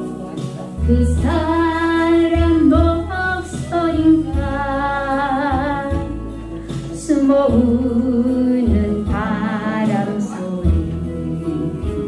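A woman singing a Korean song over a karaoke backing track with a steady bass line; she holds long notes with vibrato.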